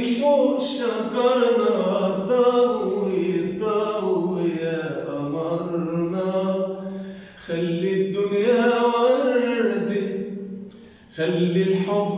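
A man singing unaccompanied in a classic Egyptian tarab style, drawing out long, wavering notes. He pauses briefly for breath about seven and eleven seconds in.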